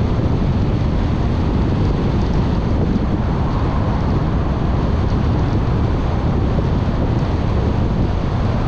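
Steady road and wind noise from a moving car: an even, deep rumble with no distinct engine note.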